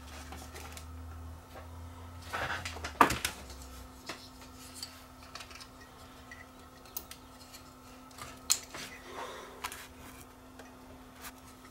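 Clicks and clatter of a circuit board and its plastic wire connectors being handled and fitted back into a plastic ozone-generator housing, with a sharp knock about three seconds in and another near the end.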